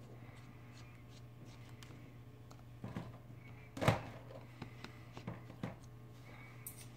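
Small clicks and knocks of tools and parts being handled on a workbench, with one sharper, louder knock about four seconds in, over a steady low electrical hum.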